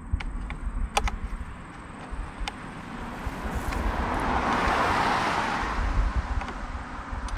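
A car passing by, growing louder to a peak about five seconds in and then fading away. A few sharp clicks sound before it, the loudest about a second in.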